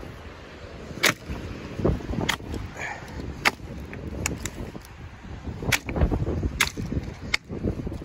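Dry dead branches snapping by hand: about eight sharp cracks at irregular intervals, with twigs rustling between them.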